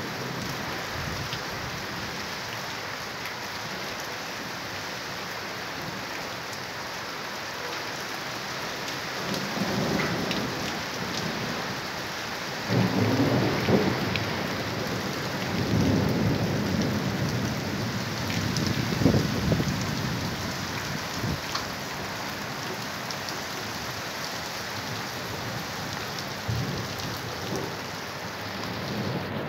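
Steady moderate rain with rolling thunder: a long rumble builds about nine seconds in, comes in several louder peaks over the next ten seconds, and fades away.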